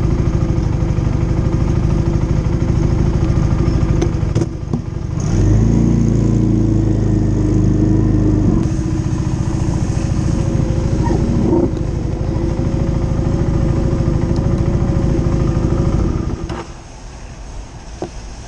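Motorcycle engine running while ridden, with a brief dip about four seconds in followed by a stronger pull for a few seconds. The engine sound then falls away to a much quieter level about sixteen seconds in.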